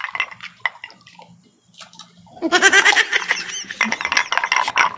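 A quiet stretch of small clicks and crunches from eating at the table, then from about two and a half seconds in, loud voices talking and laughing.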